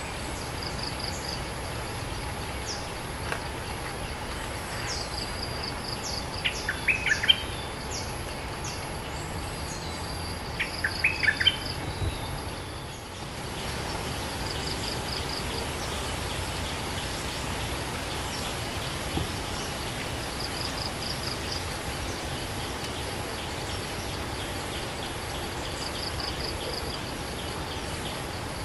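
Bulbul calling in short bursts of quick, chirpy notes, twice, about six and eleven seconds in, over a steady high insect hum. A small, high trill repeats every few seconds throughout.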